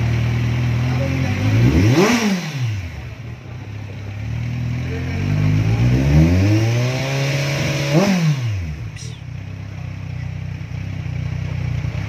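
Kawasaki Z1000 inline-four breathing through an aftermarket mid-pipe and Austin Racing carbon slip-on exhaust, idling and then blipped sharply about two seconds in. It is then revved up more slowly to a peak near eight seconds and drops back to a steady idle.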